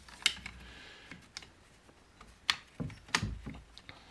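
A few sharp clicks and taps of hard plastic chainsaw parts being handled and pressed into place, the loudest about a third of a second in and twice near the end.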